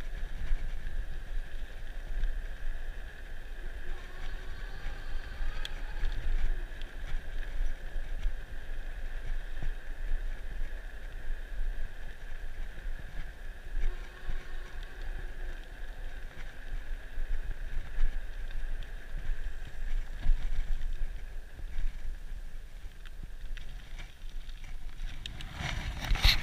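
Rad Runner Plus electric bike riding along a paved path: wind buffeting the microphone as a gusting low rumble, over a steady thin high whine.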